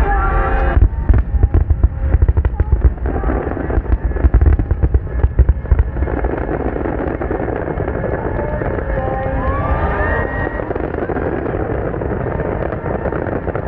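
Finale barrage of large aerial firework shells bursting in rapid, deep booms for about the first six seconds. After that the booms thin out into a steadier noisy wash.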